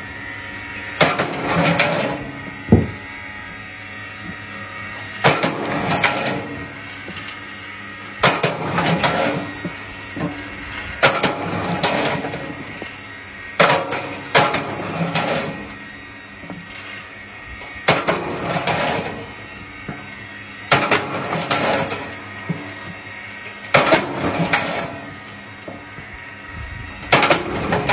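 Log splitter forcing pieces of firewood through its wedge about every three seconds, each split a short burst of wood cracking and tearing apart, over the machine's steady running hum.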